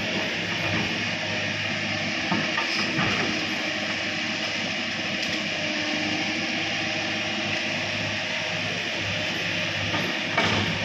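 Tracked excavator's diesel engine running steadily as the machine works its boom, under a constant hissing wash of noise. A few knocks come through, the loudest near the end.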